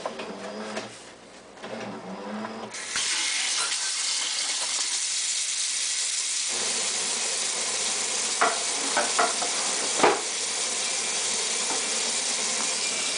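Kitchen faucet turned on about three seconds in, then a steady stream of running water splashing into the sink basin. A few light knocks come through around the middle.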